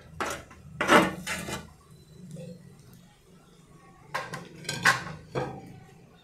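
Metal spatula scraping on a clay comal and knocking against a clay plate as roasted onion and garlic are lifted off: several short clatters, the loudest about a second in and again around four to five seconds in.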